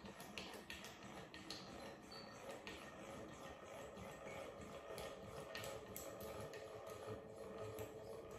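Faint, irregular clicking from a hand-cranked force-gauge test stand as its handwheel is turned, loading a braided fishing line, over a low steady hum.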